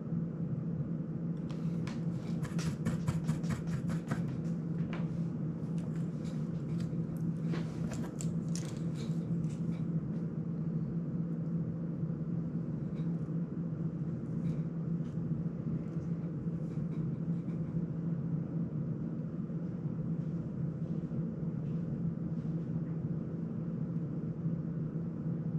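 A steady hum runs throughout, with a run of light clicks and ticks from small tools and parts being handled on a soldering bench. The clicks come thick for the first several seconds, then sparse and fainter.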